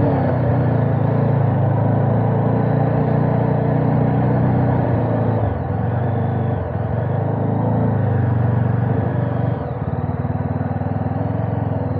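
Motorcycle engine running steadily under load on a steep climb, heard from the rider's seat. The engine eases off a little about ten seconds in.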